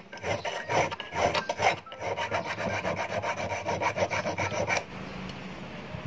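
Hand file rasping back and forth against a steel fish hook, shaping the hand-made hook, in quick even strokes about three a second that stop about a second before the end.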